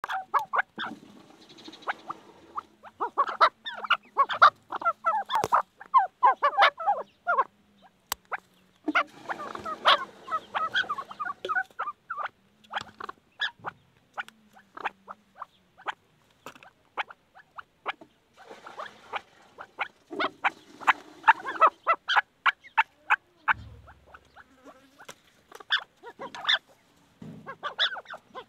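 Chukar partridges calling: fast runs of short clucking notes in bouts of several seconds, with brief pauses between bouts.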